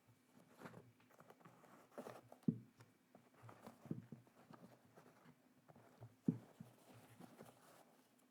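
Hands handling unboxed items and packaging: soft scattered rustles and taps, with two sharper knocks, about two and a half seconds in and again about six seconds in.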